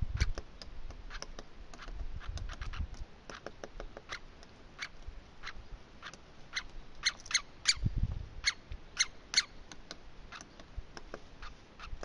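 Woodpecker at close range pecking at tree bark: irregular sharp taps and clicks, busiest from about seven to nine and a half seconds in. A few low thumps sound under them, one near the start and one about eight seconds in.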